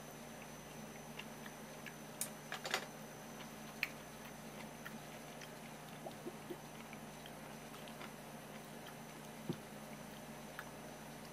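A glass carafe and a ceramic cup being handled. A quick cluster of light clicks and clinks comes about two and a half seconds in, then a few scattered single taps, over a steady low hum.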